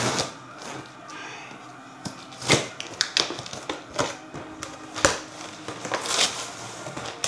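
A cardboard box being worked open by hand: irregular sharp knocks and scrapes, about one a second, with rustling of cardboard and packing in between.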